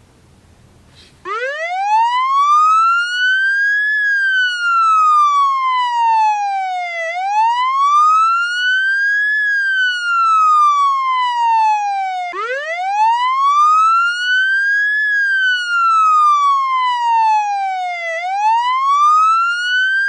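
Wailing siren sound effect that starts suddenly about a second in. Its pitch rises and falls slowly, a few seconds each way, and the wail starts over from low pitch about halfway through.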